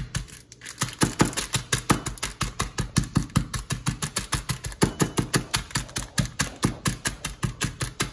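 Peanuts in a plastic bag being crushed on a wooden cutting board by pounding them with the handle end of a knife: quick, even knocks about five a second, with a brief pause about half a second in.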